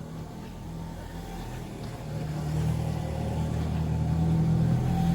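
A motor vehicle engine running and drawing closer, growing steadily louder.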